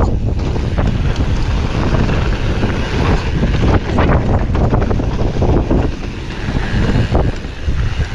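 Wind buffeting the microphone while a Commencal Supreme DH29 downhill mountain bike rides down a loose gravel trail. The tyres crunch over the stones and the bike rattles with many irregular knocks from the rough ground.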